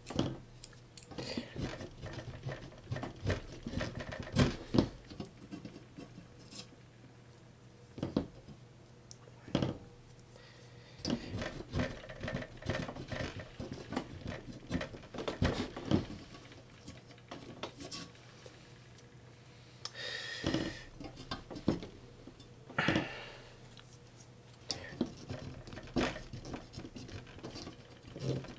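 A plastic scraper scraping and picking sticker residue off the painted top plate of a Pioneer DJM-400 mixer, in short irregular scratches and clicks, with two longer, louder scrapes about twenty and twenty-three seconds in.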